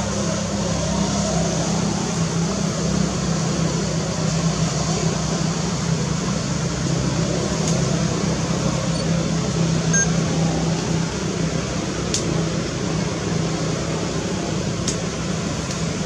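A steady low mechanical hum under a constant hiss, with a few faint clicks.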